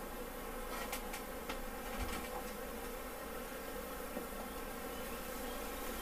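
Honeybees buzzing steadily en masse around freshly cut comb, with a few light clicks from handling.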